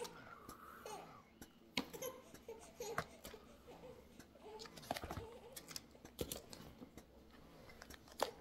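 A baby babbling and giggling in short bursts, over sharp clicks and rustles from camera packaging being handled.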